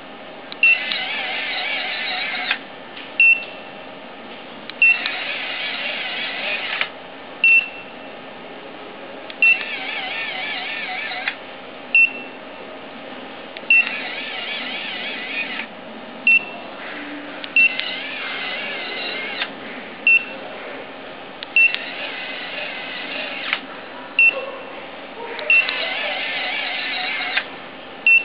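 Motorized curtain-type hidden license plate frames: a short sharp electronic beep with each remote command, and a small electric motor whirring for about two seconds at a time as the roller curtain covers or uncovers the plate. This repeats about seven times, with the beeps the loudest sound.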